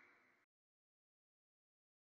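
Near silence: a faint fading tail of sound that cuts off about half a second in, then complete digital silence.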